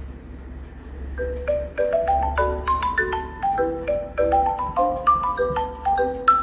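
A Samsung A14 5G phone's loudspeaker playing a marimba-style ringtone melody. About a second in, quick runs of short mallet-like notes begin, climbing and falling in a repeating pattern.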